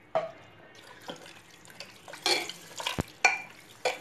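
Mutton pieces, onions and spices being stirred in water in a pressure cooker: irregular sloshing splashes and knocks against the pot, the sharpest knock about three seconds in.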